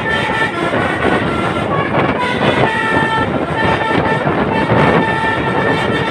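Telolet multi-tone air horn on a truck sounding a string of short notes that step up and down in pitch, over loud engine and road noise.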